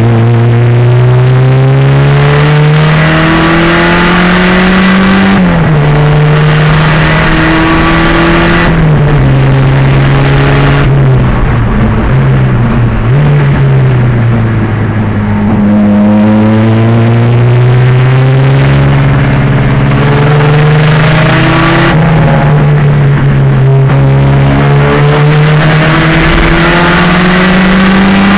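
A 1987 Pontiac Fiero race car's 2.0-litre turbocharged engine running under hard acceleration, its pitch climbing through the gears and dropping at each upshift. About halfway through, the driver lifts and the pitch falls for a few seconds, as when slowing for a corner. Then the engine pulls hard again and climbs through another upshift.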